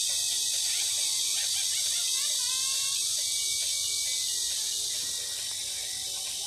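Steady high-pitched insect chorus droning without a break, with a few faint short chirps mixed in.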